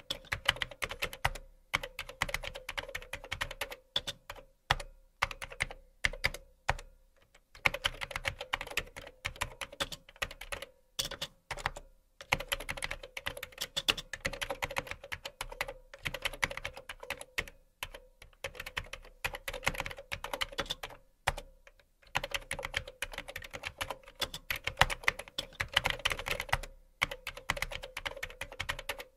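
Computer keyboard typing sound effect: rapid key clicks in runs of a few seconds, broken by short pauses.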